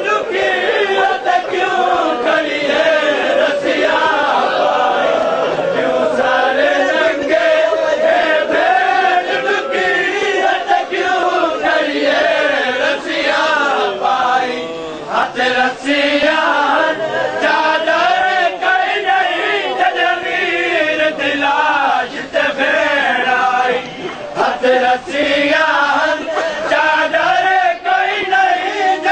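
A crowd of men chanting a Punjabi noha (Shia lament) in unison, with the sharp slaps of hands beating chests in matam sounding through it.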